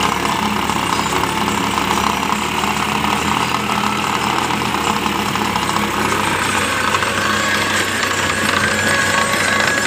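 New Holland 5510 Excel tractor's diesel engine running steadily under load, driving a rotavator whose spinning blades churn soil and chop banana stalk debris.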